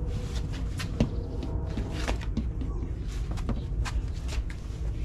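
Scattered knocks, scuffs and footsteps: a washing machine being moved by hand and set in place.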